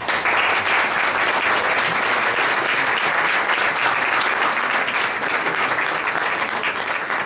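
Audience applauding steadily: a dense round of many hands clapping that starts suddenly.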